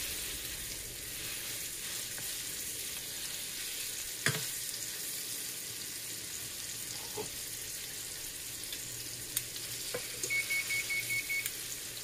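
Butter sizzling steadily in a skillet as spoonfuls of ground-chicken nugget mixture fry in it, with a sharp knock about four seconds in. Near the end comes a run of six quick, high electronic beeps.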